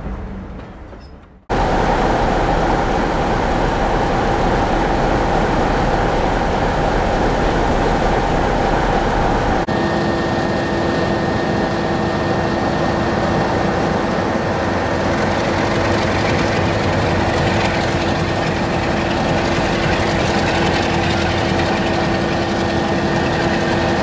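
Diesel locomotive engine running steadily with a droning hum, heard in two edited clips: a sudden cut in about a second and a half in, and another cut near ten seconds where the pitch of the hum changes.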